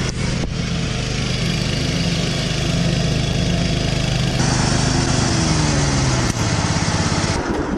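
Ride-on lawn mower's engine running close by, its pitch dropping as it slows about two-thirds of the way through.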